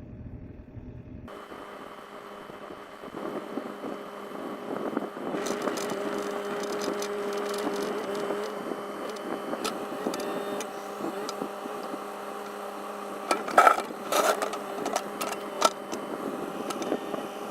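Bobcat compact excavator engine running steadily, getting louder about five seconds in. Several loud clanks come near the end.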